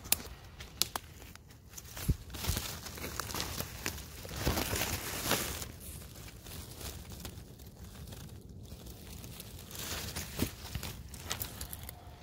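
A hand rummaging through moss, grass and dry twigs on the forest floor to pick a mushroom: uneven rustling and crackling, with a few sharp little clicks and a denser stretch of rustling about four to six seconds in.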